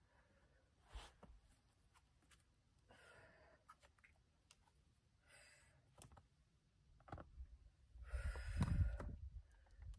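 A boulderer's sharp, breathy exhales on the hard moves of an overhang: four of them spread apart, the last and loudest about eight seconds in. Between them come a few faint clicks of hands and shoes on the rock.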